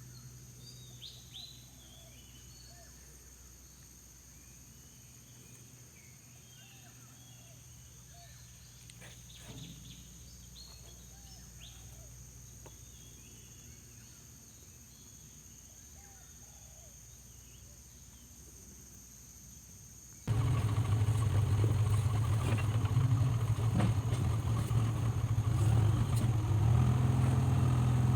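Birds chirping over a faint low hum. About twenty seconds in, a backhoe loader's engine cuts in suddenly, loud and running steadily with a deep drone.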